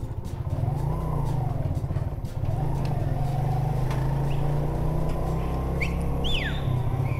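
Suzuki GN125 motorcycle's single-cylinder four-stroke engine running under way at low speed, briefly easing off about two and a half seconds in. Near the end come a few short, sharp whistles that rise and fall, from people whistling to get the rider to stop.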